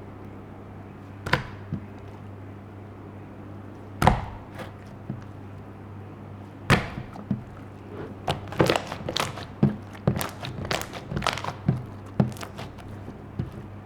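Slime being pressed and poked by hand, giving sharp clicks and pops: a few spaced apart, then a quick run of many in the second half, over a faint steady hum.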